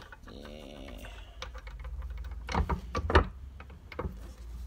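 An old brass radiator valve being unscrewed by hand in a bench vice: a brief wavering creak in the first second, then a run of sharp metallic clicks and knocks, the loudest about three seconds in, and one more click near the end.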